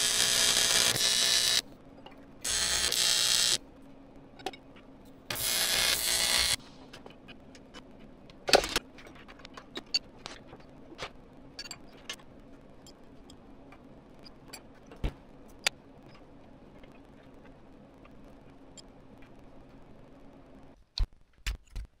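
Arc welder welding aluminium flat bar in three short bursts of a second or so each, starting and stopping abruptly. A single sharp metal knock comes a couple of seconds after the last weld, followed by faint scattered clicks.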